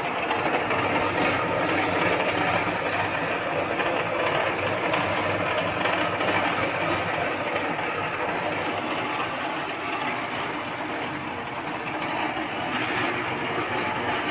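Small JQ concrete mixer running, its drum turning with a steady mechanical rumble and a low hum underneath.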